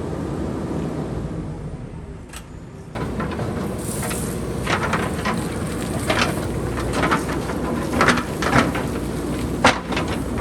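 JCB backhoe loader's diesel engine running steadily under rocks and boulders clattering and knocking as they tumble down the hillside. The engine drops off briefly about two seconds in and comes back suddenly; from about four seconds on the knocks of stone on stone come thick and fast, with a few loud cracks.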